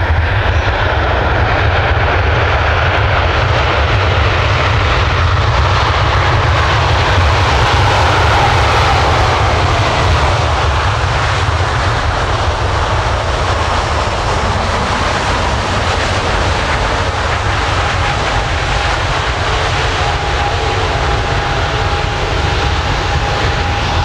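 Boeing 787-8 airliner's Rolls-Royce Trent 1000 turbofans running as it lands and rolls out along the runway: a steady, loud jet noise over a deep rumble. A faint steady whine comes in during the second half.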